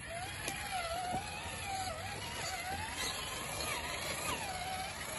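Axial SCX10 RC crawler's electric motor and gearbox whining as it crawls over rock, the pitch wavering up and down as the throttle is eased on and off.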